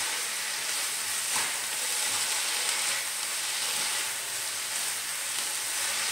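Shredded cabbage, onion and tomato frying with a steady sizzle in a non-stick kadai over a high gas flame, stirred with a wooden spatula that scrapes through the vegetables. The high flame is kept on to drive off the cabbage's water.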